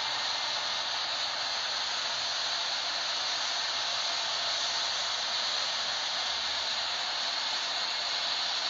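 Steady, unchanging rushing noise from a Boeing 777 jet airliner, the hiss of its engines and airflow.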